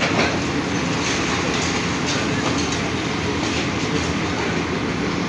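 Diesel engine and hydraulics of a long-reach demolition excavator running steadily, with faint scattered knocks and crunches of concrete and debris being broken from the building.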